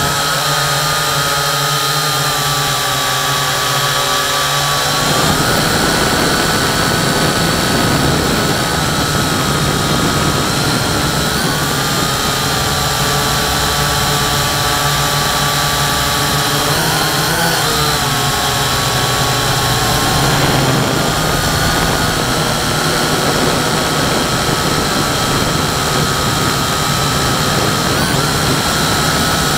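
Quadcopter drone's electric motors and propellers whining steadily, heard close up from the drone's own onboard camera. The pitch dips or wobbles briefly a few times as the motor speeds change.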